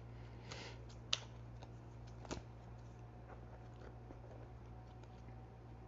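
Tarot cards being handled and drawn from the deck: a brief soft rustle, then a sharp click and a second click a little over a second later, followed by faint small ticks, over a low steady hum.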